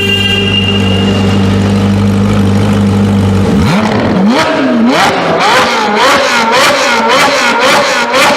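Sports car engine holding a steady drone, then, about three and a half seconds in, revving hard in quick repeated rises and falls, about two a second, with sharp exhaust cracks at each drop.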